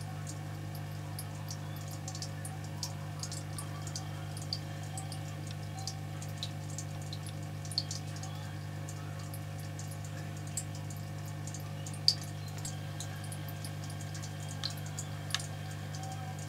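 Steady low hum of an aquarium pump with scattered small water drips and bubble pops; one sharper pop about twelve seconds in.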